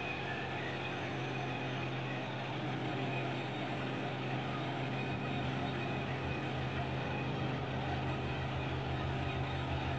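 Concrete pump truck's diesel engine running steadily with a constant low hum, driving the hydraulics that unfold the pump's boom.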